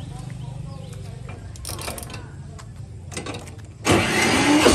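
Small single-cylinder engine of a TL-1.4 MAX mini rice combine harvester, started with the key: a few light clicks at the controls, then about four seconds in the engine catches suddenly and runs with a fast, rattling firing, briefly rising in pitch as it picks up.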